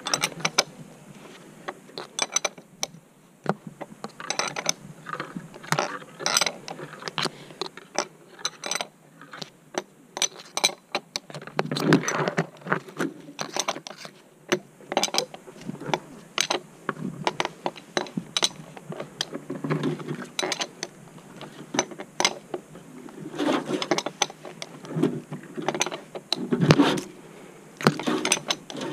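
Ratcheting wrench clicking in short irregular runs as a nut is tightened on tree-cabling hardware, with scrapes and knocks of metal fittings.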